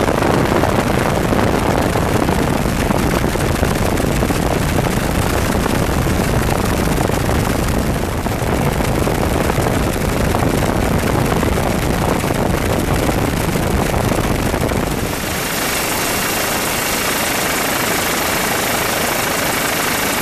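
Steady rotor and engine noise of a helicopter, as heard from aboard while filming. About fifteen seconds in, the sound changes abruptly, with less low rumble and more hiss.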